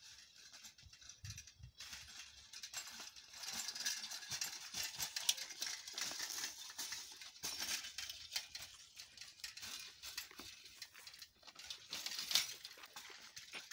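An old roadster bicycle being wheeled over a dirt track: continuous light clicking and rattling from the freewheel, chain and loose parts, with a sharper clink near the end as it is brought to a stop.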